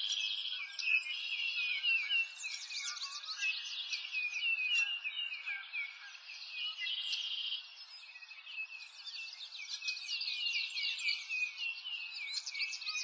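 Dense chorus of small birds chirping, with many quick, high-pitched, overlapping chirps that go on without a break.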